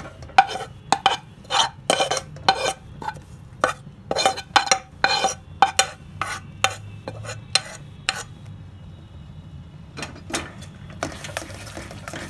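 Metal spoon clinking and scraping against a metal pan as roasted chironji powder is spooned into softened mawa: a quick series of sharp taps for the first eight seconds or so, a couple more a little later, then a continuous scraping of stirring near the end.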